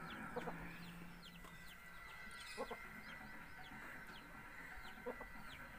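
Faint chickens clucking, with many short high chirps repeating through it.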